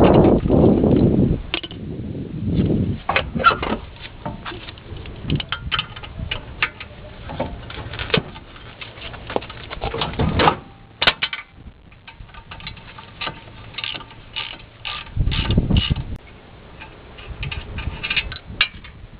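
Hand tools working on a pickup's front suspension: irregular metal clicks, clinks and ratcheting, with a few heavier low thumps.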